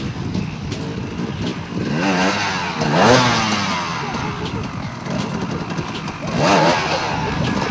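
Enduro dirt bike engine revving in bursts as the rider feeds throttle to climb over logs, with a loud rising-and-falling rev about three seconds in and another near the end.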